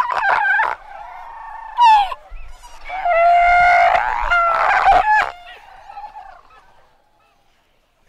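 Kerguelen fur seals calling up close in a breeding colony: a short call, then a brief falling cry, then a long held call of about a second and a half with another right after it. The calls die away about six seconds in.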